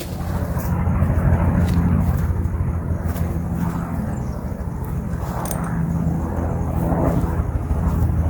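A vehicle running steadily with a constant low hum, with scattered light clicks and rattles over it.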